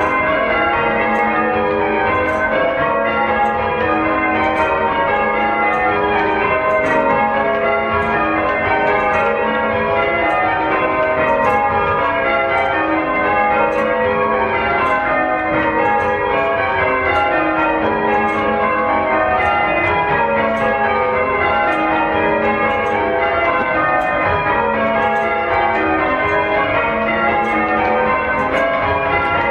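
Church bells being rung in changes: a continuous, even stream of overlapping bell strikes, each bell sounding in turn as the order shifts from row to row.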